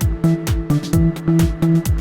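Upbeat electronic background music with a steady beat: a kick drum about twice a second, crisp hi-hat clicks and held synth notes.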